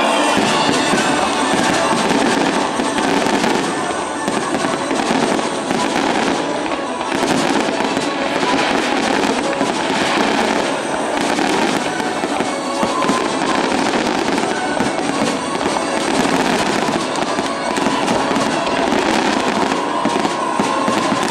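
Aerial fireworks display: a dense, unbroken crackle and pop of bursting shells, over the show's accompanying music.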